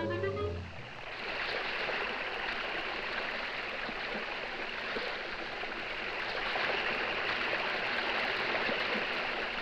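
Steady rushing of a waterfall, a sound effect in a 1940s animated cartoon, coming in as the music stops within the first second.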